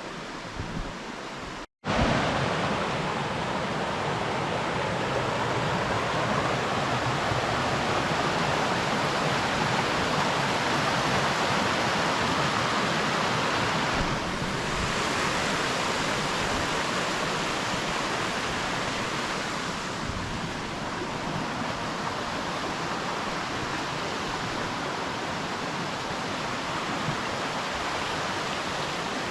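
Steady rush of flowing water from a creek in full flow. It cuts out for a moment about two seconds in and comes back louder.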